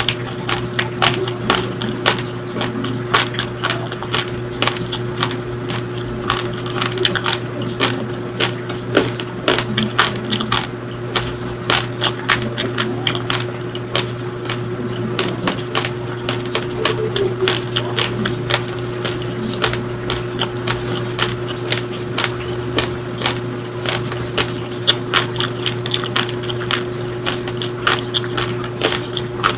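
Close-miked crunching of uncooked raw white rice grains being chewed, many sharp cracks several a second throughout. A steady low hum runs underneath.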